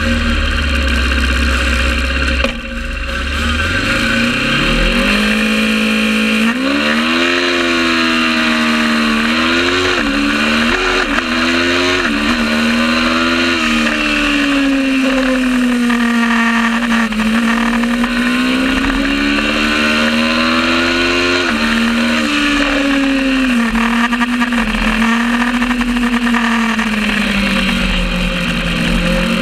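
Kawasaki ER650 Supertwin race bike's parallel-twin engine, low and steady for about four seconds, then pulling hard with the revs climbing through several quick upshifts. After that it stays high, its pitch rising and falling as the bike brakes and accelerates.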